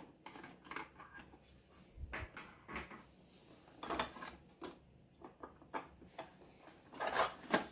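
Scattered faint clicks and knocks from the plastic housing of a Wahoo Headwind fan being handled and shifted during disassembly.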